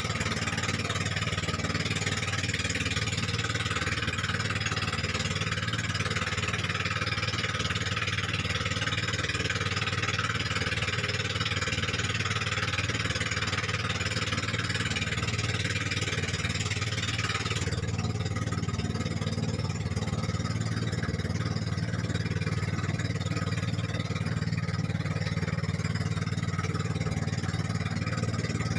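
Engine of a motorized outrigger boat (bangka) running steadily while underway, with a rushing hiss of wind and water over it that drops away about two-thirds of the way through.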